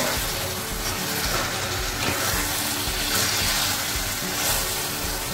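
Chicken and tomato masala sizzling steadily in a frying pan while it is stirred with a steel spatula; the tomatoes have cooked down.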